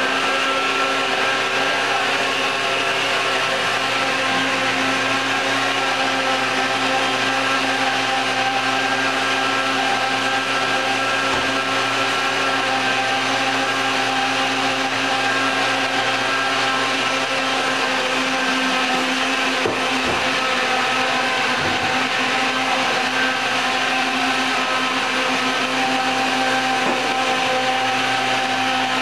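Countertop blender motor running steadily at a constant pitch, pureeing bananas that are almost smooth with a few chunks still left.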